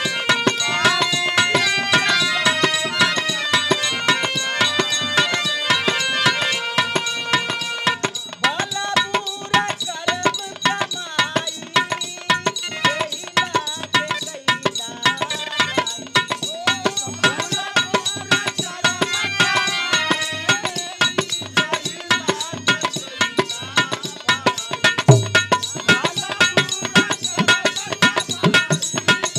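Dholak drumming a fast, dense rhythm under a harmonium melody: instrumental accompaniment for Bhojpuri birha folk song. The harmonium's held notes are clearest in the first several seconds.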